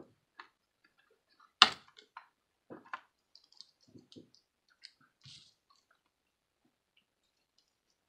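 Scattered clicks and knocks of small hand tools and a wristwatch being handled on a tabletop, as a tiny screwdriver is picked up and set to the screws on the back of the watch. One sharp knock about a second and a half in, then a run of lighter clicks.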